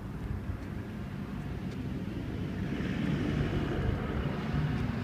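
MV Agusta F4 1000's inline four-cylinder engine idling through a QD "Power Gun" aftermarket exhaust, a steady low rumble that grows slightly louder toward the end.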